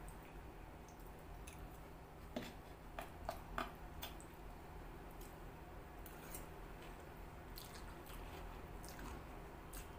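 Metal spoon and fork clinking and scraping on a clay plate and bowl as chow mein is mixed with gravy, with soft squishing and chewing. A few sharp clicks about two and a half to four seconds in are the loudest, and fainter taps follow.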